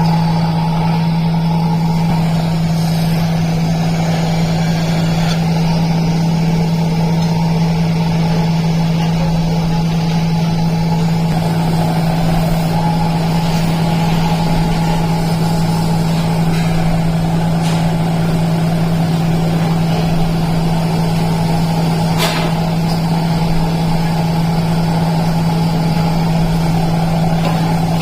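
Steady machine drone with a constant low hum that does not change in pitch or level, and a single faint click about 22 seconds in.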